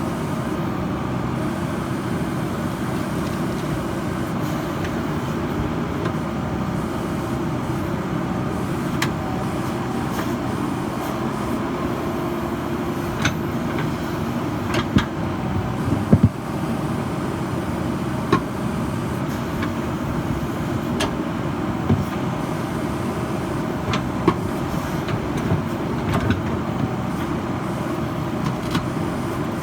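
JCB backhoe loader's diesel engine running steadily, with a scattering of short, sharp knocks from about halfway in.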